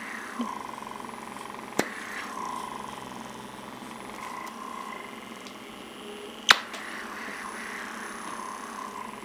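Lumae Skin microdermabrasion wand's suction pump running with a steady whir, its pitch shifting slightly as the diamond tip is drawn across the skin of the brow. Two sharp clicks, about two seconds and six and a half seconds in; the second is the loudest sound.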